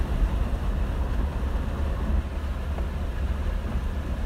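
Jeep driving through shallow floodwater on a road: a steady low rumble of engine and tyres with a hiss of water and wind.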